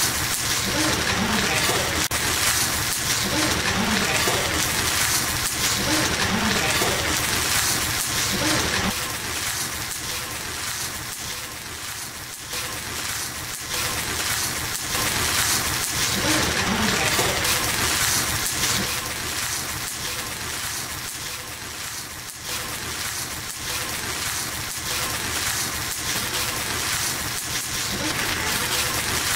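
Bibimbap rice sizzling in a hot stone bowl (dolsot) as a spoon stirs it, with occasional clicks of the spoon against the stone. Voices talk faintly in the background for the first several seconds and again about halfway through.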